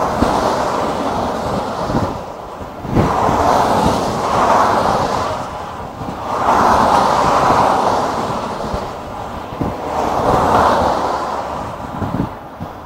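Cars passing one by one on a motorway, the tyre and engine noise of each swelling up and fading away, about four passes in all. Wind buffets the microphone with low thumps throughout.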